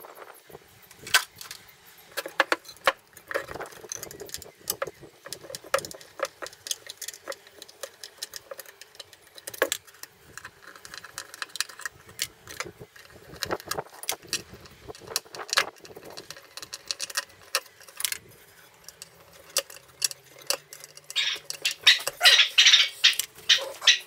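Metal parts and hand tools clinking and clicking while an old electronics chassis is being taken apart, in scattered irregular knocks. Near the end comes a dense burst of rapid metallic rattling.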